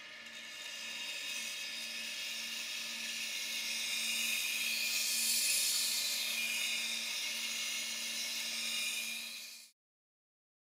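Knife edge being fine-ground on a water-cooled wet grindstone: a steady hiss of steel on the wet stone over the grinder motor's low hum. It grows louder toward the middle and cuts off suddenly near the end.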